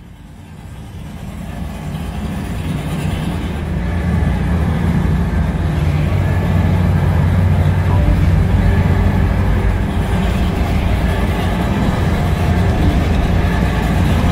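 Low, steady engine rumble of high-horsepower performance catamaran power boats running at idle speed on the water, growing louder over the first few seconds and then holding level.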